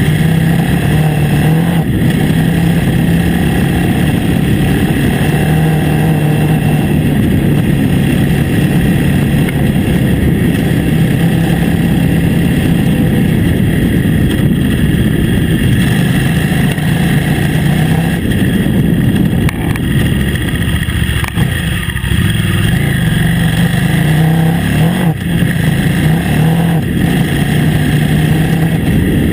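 KTM 950 Adventure S's 942 cc V-twin engine running steadily under way. Its note dips briefly about twenty seconds in, then picks up again.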